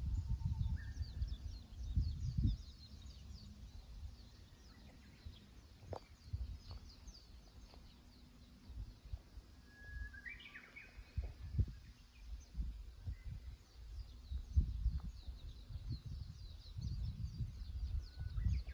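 Small birds chirping in short, high notes throughout, with a brief whistled call rising in steps about ten seconds in. Low rumbling gusts of wind on the microphone come and go, strongest in the first two seconds and again near the end.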